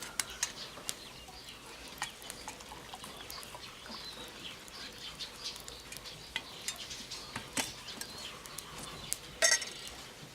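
Faint bird calls over scattered small clicks and taps, with one short louder call or clink about nine and a half seconds in.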